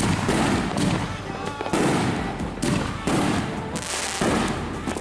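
Fireworks going off around the neighbourhood: a string of sharp bangs and cracks, one every half second to a second or so.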